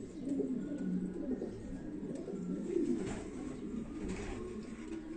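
Domestic pigeons cooing, several low, warbling coos overlapping one another without a break.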